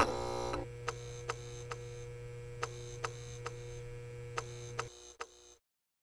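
Electrical sound effects of an animated end screen: a switch clicks at the start, then a steady electrical hum runs under sharp ticks that come every half second or so. The hum cuts off about five seconds in.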